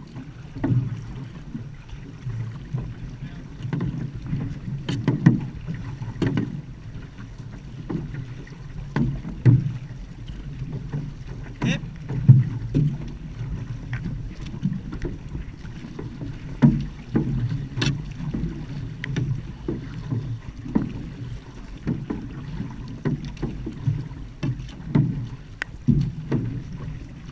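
Outrigger canoe (va'a) being paddled: repeated paddle strokes splashing and thumping through the water at a steady pace of about one a second, over a low rumble of water and wind.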